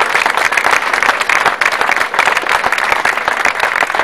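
Crowd applauding: many people clapping their hands in a dense, steady patter.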